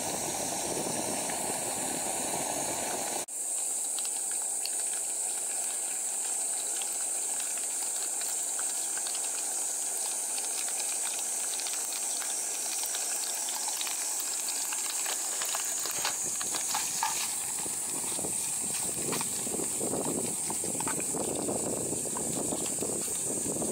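Bacon strips sizzling in olive oil in an aluminium Trangia mess tin: a steady high hiss with fine crackling. Near the end, tongs turning the strips add rougher, lower noise.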